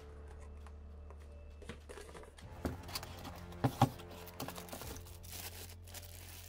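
Cardboard box being handled and its lid opened, with a few sharp knocks a little past halfway, the loudest two close together; then a clear plastic bag crinkling near the end, all over quiet background music.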